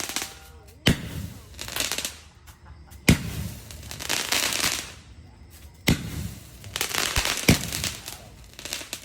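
Fireworks going off: four sharp bangs a couple of seconds apart, each followed by about a second of crackling.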